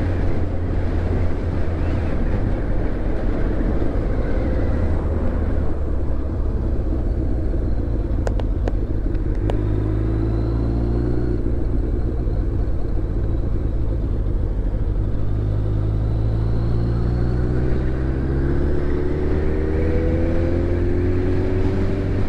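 Motorcycle engine running while riding, under a steady rush of wind and road noise. The engine pitch rises as it accelerates, about ten seconds in and again over several seconds from about fifteen seconds.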